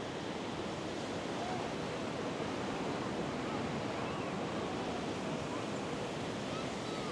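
Ocean surf breaking and washing up on a sandy beach, a steady wash of wave noise.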